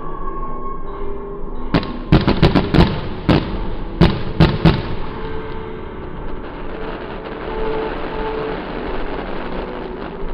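Fireworks going off: a quick volley of about ten sharp bangs from about two seconds in to about five, then a steady noisy wash that carries on to the end.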